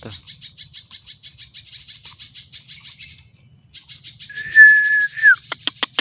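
Insects chirping in a fast, even rhythm, about five chirps a second. About four seconds in comes a loud single held whistle that drops in pitch at its end. A quick run of sharp clicks follows near the end.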